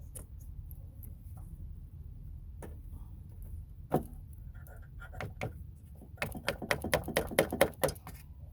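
Metal hand tools clicking and clinking on car battery terminal hardware while vise-grip pliers work the terminal posts. There is one sharp knock about four seconds in, then a quick run of a dozen or so clicks near the end, over a low steady rumble.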